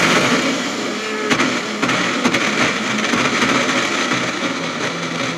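Kajafa personal blender's motor running steadily at full speed, grinding roasted almonds, cashews and pistachios in its jar into a coarse powder.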